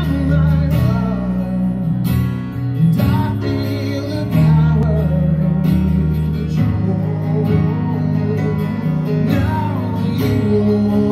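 Live band music: an acoustic guitar strummed with a Nord Stage keyboard holding sustained chords beneath it, the instrumental opening of a slow song.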